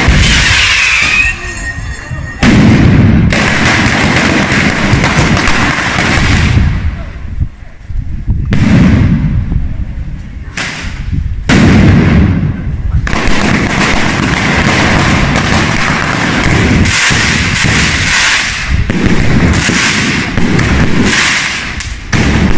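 A batteria, a long chain of firecrackers laid along the street, going off in rapid succession as a dense, continuous crackle of bangs with a few brief lulls.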